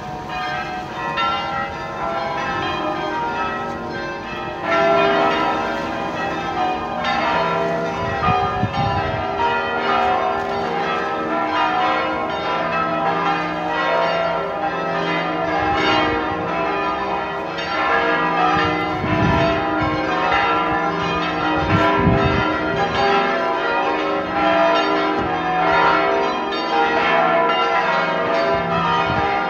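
Full peal (plenum) of a basilica's church bells, all ringing together in a dense, continuous clangour of overlapping strokes, with more bells joining about five and seven seconds in. It is the call to an evening rosary service, rung a quarter of an hour before it starts.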